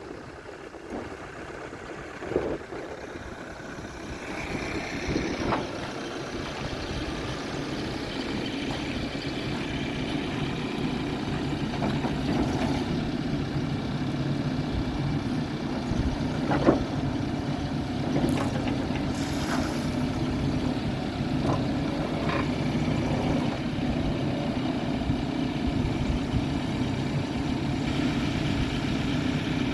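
New Holland B95C backhoe loader's diesel engine running at low revs, smooth and quiet, growing gradually louder from about four seconds in. A few sharp knocks from the machine break in, the loudest a little past halfway.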